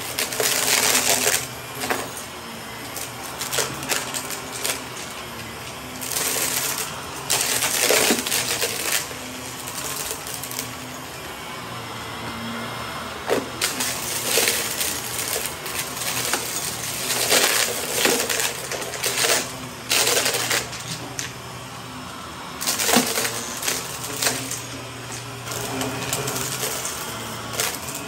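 Upright vacuum cleaner running steadily over a shaggy rug. Repeated bursts of crunching and rattling come every one to three seconds as it sucks gritty debris out of the pile.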